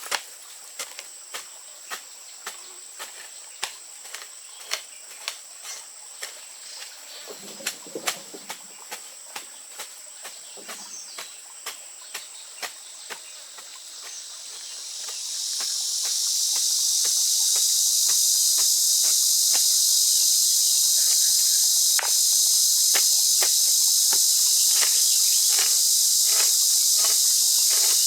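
A chorus of insects droning at a high pitch, swelling in about halfway through and then holding steady as the loudest sound. Under it runs a regular series of sharp taps, about two a second.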